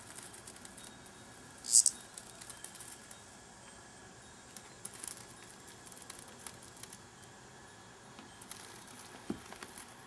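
A cicada caught by a cat gives one short, loud, high-pitched buzz about two seconds in, the distress squawk of a cicada being grabbed. Around it are light scratching and rustling of paws and the insect on the carpet, and a soft thump near the end.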